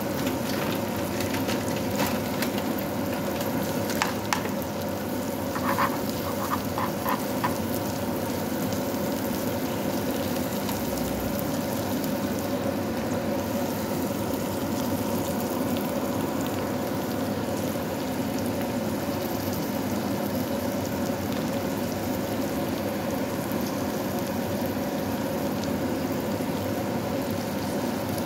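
Onions, green peppers and sausage slices frying in oil in a pan: a steady sizzle. A few sharp clicks and a quick run of taps come in the first eight seconds.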